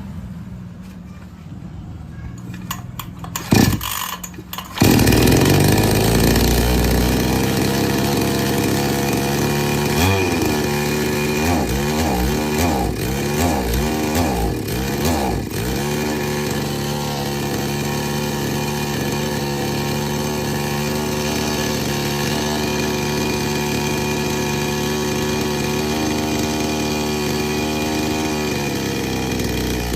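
Petrol two-stroke chainsaw starting up about five seconds in, after a few loud knocks, and then running. Between about ten and sixteen seconds its engine speed rises and falls several times, then it settles to a steady run. The saw won't take load and its carburetor is out of adjustment.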